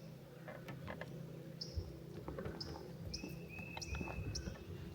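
Birds chirping: a short high chirp repeated about every half second to second, with a longer whistled note about three seconds in. Under it are a low steady rumble and a few faint clicks.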